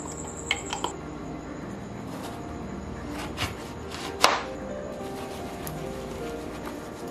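Background music with a few kitchen clicks and knocks over it, the loudest a single sharp knock about four seconds in.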